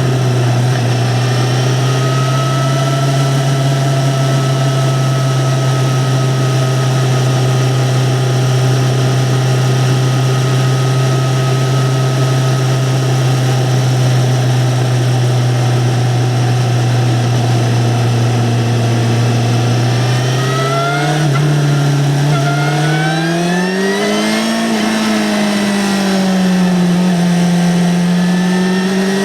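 2009 Yamaha XJ6-N's 600 cc inline-four running through its stock exhaust. It holds a steady engine speed for about twenty seconds, then revs up. The pitch climbs, drops briefly at a gear change and climbs again near the end.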